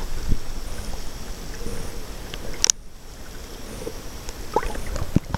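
Sea water sloshing and gurgling around a camera held just under the surface, with scattered small clicks and splashes. About halfway through there is one brief sharper splash, and after it the water noise is a little quieter.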